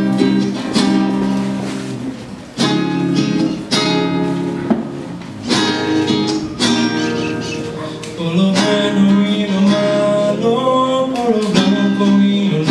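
Acoustic guitars of a rondalla strumming the chord introduction to a hymn in repeated strokes. About two-thirds of the way through, a held melody that bends in pitch comes in over the strumming.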